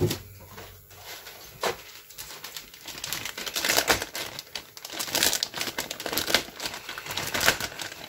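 Thin clear plastic bag crinkling and rustling in irregular crackles as it is handled and pulled off a plastic model-kit sprue, getting busier and louder about three seconds in.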